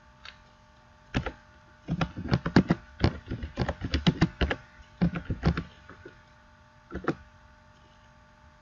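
Typing on a computer keyboard: a quick run of key clicks in short bursts, then one last key press about seven seconds in, as a short chat message is typed and sent.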